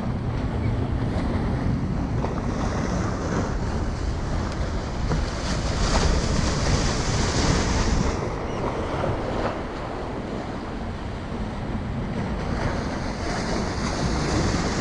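Small ocean waves breaking and washing over the rocks of a jetty, with wind buffeting the microphone as a steady low rumble. The hiss of the wash swells about six seconds in and eases off around eight seconds.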